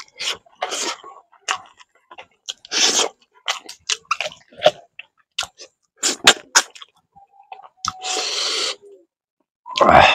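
A person chewing and lip-smacking a handful of rice and fish curry eaten by hand, with many wet clicks and a few longer hissing bursts, one about three seconds in and one near the end.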